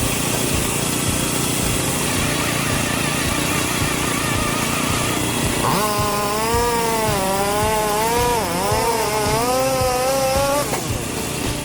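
Homemade firewood processor running with a steady mechanical clatter and regular knocking. From about halfway, its saw whines through a log, the pitch wavering and dipping under load before it stops near the end.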